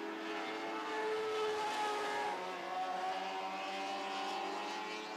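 A field of lightning sprint cars racing, several engines running together with their pitch rising and falling.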